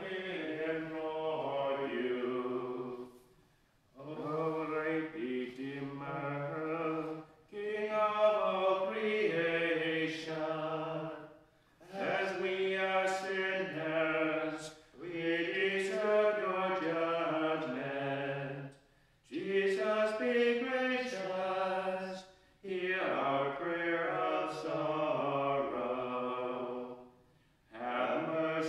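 Two men's voices chanting a hymn together, unaccompanied, in phrases of a few seconds each with short pauses for breath between them.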